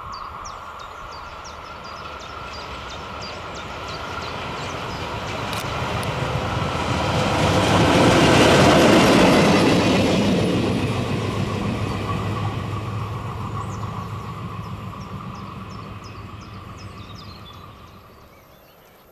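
A train passing on the track: wheel rumble and clatter build up to a peak about eight to nine seconds in, then fade away as it recedes.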